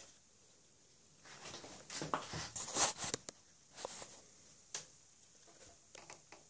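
Handling noise from a phone being positioned for filming: rustling and light knocks close to its microphone, bunched together for about two seconds, then a few scattered clicks.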